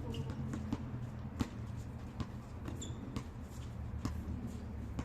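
Basketball bouncing on a court in irregular thuds during play, over a steady low hum, with one short high squeak a little after halfway.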